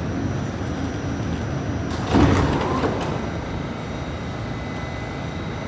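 New York City subway car at a station: a steady rumble from the train, with a louder burst about two seconds in as the car's sliding doors open, then a slightly lower steady hum.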